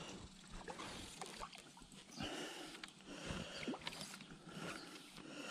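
Faint rustling of shirt fabric rubbing over the camera's microphone, with scattered small clicks and knocks.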